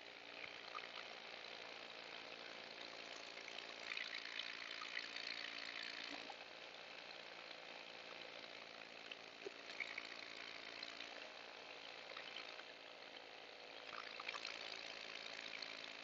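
Paramotor engine and propeller running at a steady pitch in flight, heard muffled and faint, under a rush of air that swells a couple of times.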